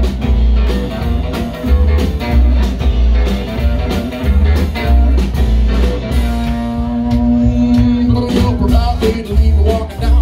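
Live rock-and-roll band playing an instrumental break between vocal lines: electric guitars, upright bass, drums and piano over a steady beat. A long note is held for about three seconds past the middle.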